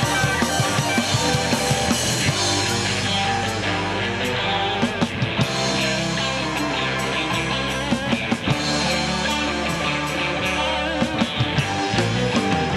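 Blues-rock band playing live: electric guitar, bass guitar and drum kit, with a harmonica played into a microphone. The drum beat is steady.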